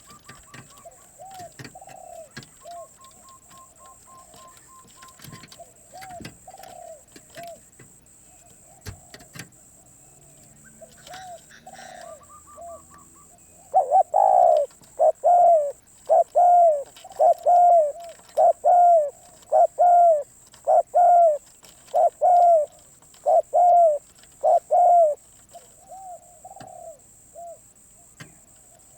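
Spotted doves cooing: soft coos for the first half, then about halfway in a loud, close run of about a dozen coo notes, roughly one a second, which drops back to soft coos near the end.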